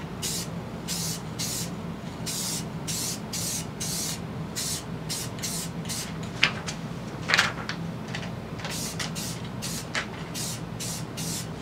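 Aerosol can of metallic silver spray paint hissing in short bursts, roughly two a second, as an ATV wheel rim is sprayed. There is a pause about halfway, with a couple of sharp clicks in it.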